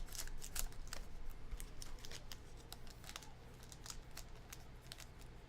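Trading card packs and cards being handled at a table: a scatter of small clicks, rustles and wrapper crinkles.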